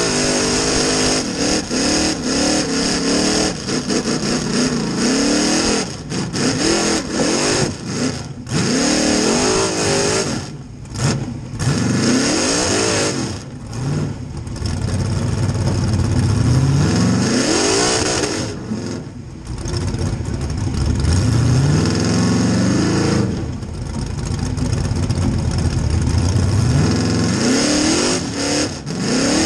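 Rock bouncer buggy's engine revving hard over and over as it climbs a steep dirt hill, heard from on board. The pitch rises and falls with each stab of the throttle, with short breaks where the throttle is lifted.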